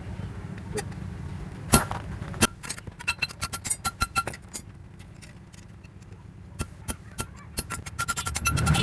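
Hammer striking hot steel on an anvil in quick, uneven runs of light ringing taps, with a steady low hum underneath.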